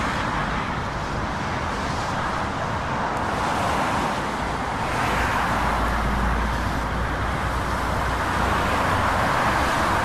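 Steady motorway traffic noise: tyres hissing on a wet, slushy road with cars and lorries passing. A deeper low rumble swells from about five seconds in as a large vehicle passes close by.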